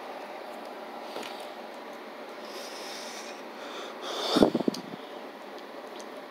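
Quiet room tone, broken about four seconds in by one short, louder rasping, breathy noise close to the microphone.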